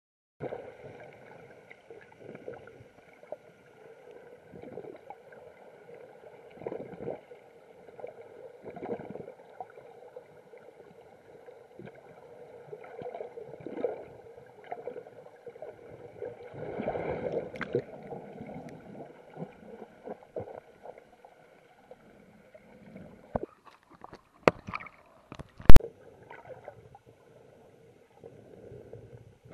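Muffled underwater sound picked up by a camera in a waterproof housing while snorkeling: irregular sloshing and gurgling water. A few knocks come near the end, the last one sharp and loud.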